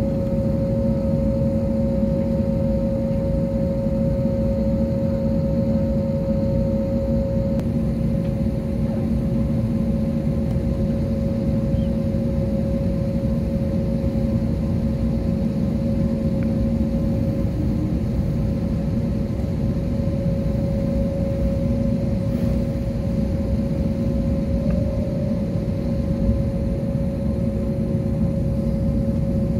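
Steady airliner cabin noise on the ground before take-off, with the engines at idle: a low rumble with a steady hum through it. A fainter, higher tone drops out about eight seconds in.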